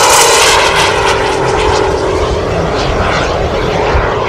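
Model gas-turbine engine of a Paritech Natrix RC jet flying past close by: loud rushing jet noise with a whine that drops in pitch right at the start as it goes by, then holds steady and eases a little as the jet climbs away.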